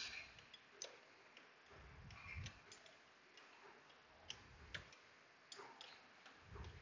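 Near silence broken by faint, irregular clicks and light taps, like hand tools and metal engine parts being handled, with a few soft low rumbles of handling in between.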